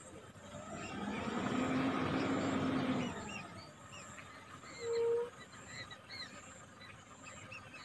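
A vehicle passes close by, its noise swelling and fading over the first three seconds, with a steady low hum at its loudest. About five seconds in comes one short honk. Small birds chirp throughout.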